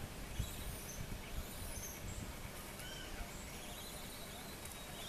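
Faint bird chirps and short whistled calls over a low outdoor rumble, with a wavering call in the second half.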